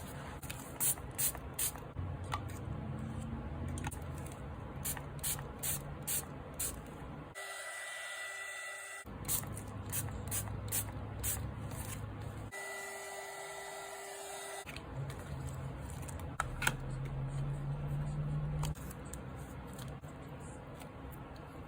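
Craft work on an art journal page: a run of light clicks and taps, with two steady hissing stretches of about two seconds each.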